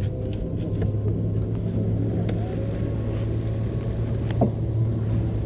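Engine of a small passenger boat running steadily underway, a low even hum with wind and water noise over it.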